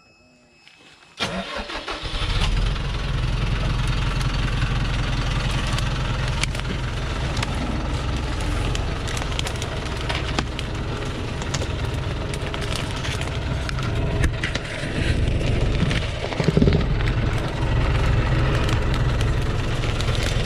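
Thaco Forland FC950 log truck's diesel engine cranked and started about a second in, catching and then running steadily.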